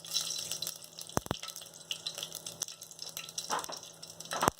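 Mustard and cumin seeds sizzling in hot oil in a pan for a tempering, a steady high hiss with a few sharp clicks about a second in and near the end.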